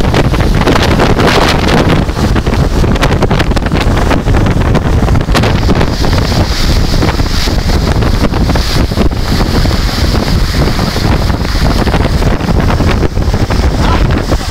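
Hailstorm: strong wind buffeting the microphone, with many small sharp hits from hailstones striking all through it.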